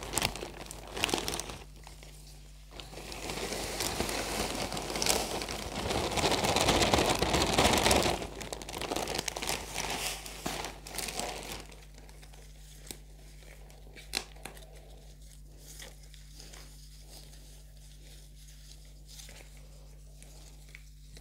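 Plastic bag of potting soil crinkling and rustling as it is handled and soil is tipped out of it, loudest for a few seconds in the middle. After that, only a few light taps and rustles.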